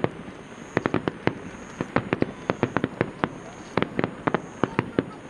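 Fireworks bursting in a rapid, irregular string of sharp cracks and pops, several a second, coming in clusters.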